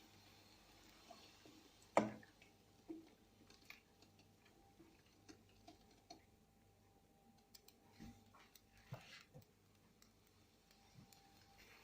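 Scattered light knocks and clicks over faint room tone, with one sharper knock about two seconds in.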